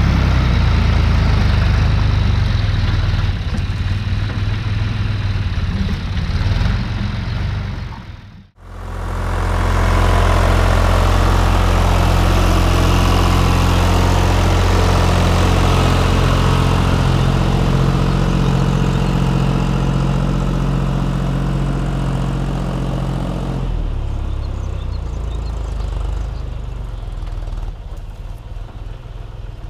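Tractor engine running steadily while ploughing. The sound breaks off for a moment a little over a quarter of the way in and comes straight back, then gets quieter over the last few seconds.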